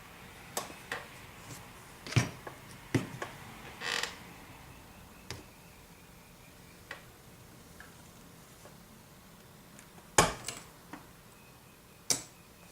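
Weights being set down on freshly glued model railway track on a workbench: about eight separate knocks and clicks of hard objects, the loudest about two seconds in and again near ten seconds.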